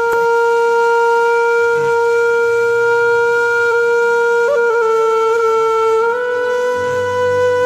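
Conch shell (shankh) blown in one long held note, scooping up into pitch at the start. It wavers briefly about halfway through and steps slightly higher near the end.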